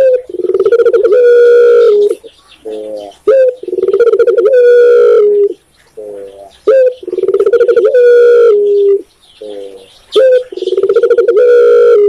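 A caged dove cooing in repeated phrases: each a few short notes followed by a long, loud drawn-out coo, about four phrases spaced roughly three and a half seconds apart.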